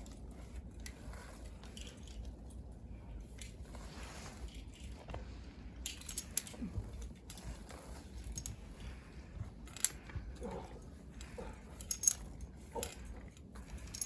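Metal climbing gear, such as carabiners, clinking and tapping in scattered small clicks, with a few sharper clinks in the second half, over a low steady rumble.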